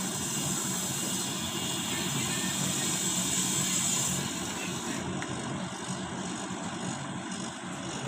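Refrigerant gas hissing through the manifold gauge valve as it is opened to charge the refrigerator; the hiss stops about four seconds in. A steady hum from the refrigerator's running compressor continues underneath.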